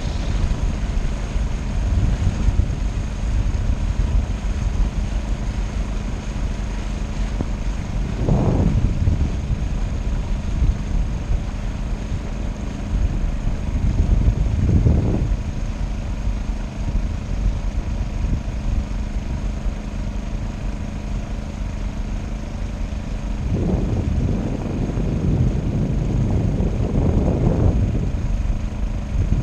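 A boat's engine running steadily with a low, even hum, while wind rumbles on the microphone and swells up a few times.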